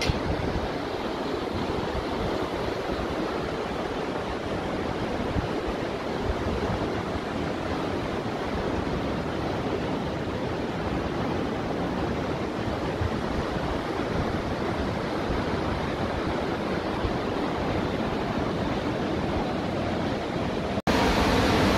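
Steady rush of a mountain river churning through a rocky gorge below. Near the end it drops out for an instant and comes back louder.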